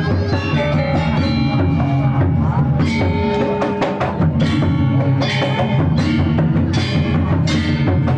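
Music with drums and percussion over sustained pitched instruments, at a steady level.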